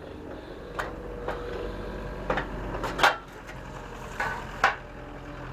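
Several sharp knocks and clunks from loading work at a truck trailer, the loudest about three seconds in, over a steady engine hum.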